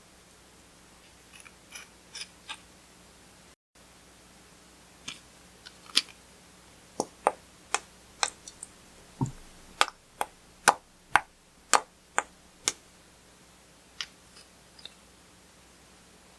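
Clear slime being squeezed and folded by hand, giving irregular sharp pops and clicks as air pockets burst. The pops come faintly at first, then thick and loud for several seconds near the middle, then thin out.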